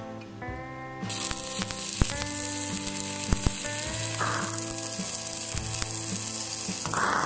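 Stick (arc) welding on thin square tube: the arc is struck about a second in and then burns with a steady hiss and a few sharp pops.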